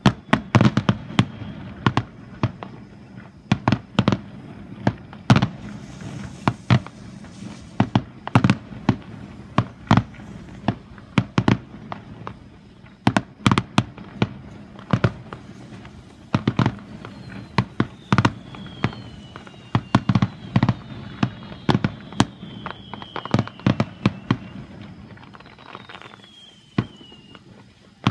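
Fireworks display: a dense, uneven string of sharp bangs from bursting aerial shells, over a low rumble. In the latter part there are several high, falling whistles.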